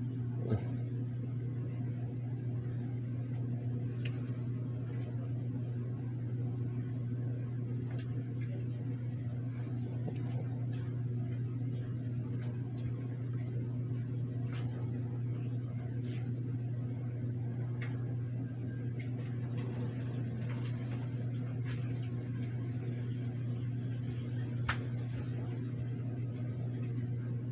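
A steady low hum, unchanging throughout, with a few faint sharp clicks, the clearest about half a second in.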